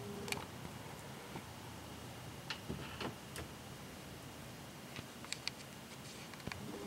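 Faint, scattered clicks and ticks of a hex driver working on the plastic spur gear and gearbox of an Axial SCX10 RC crawler while its screws are being loosened.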